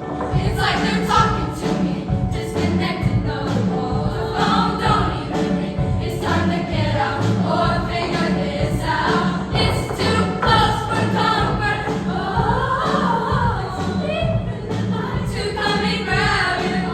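Junior high girls' choir singing.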